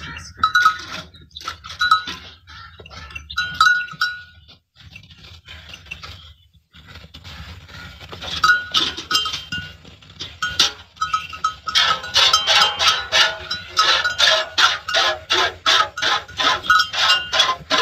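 Livestock neck bells jingling and clinking as the tethered animals shift about. The strikes are scattered at first and pause for a couple of seconds. From about twelve seconds in they ring quickly and steadily, several strikes a second.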